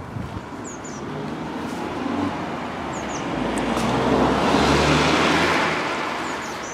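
A road vehicle passing close by. Its engine and tyre noise swells to a peak about two-thirds of the way in, then fades away. Brief high bird chirps come through now and then.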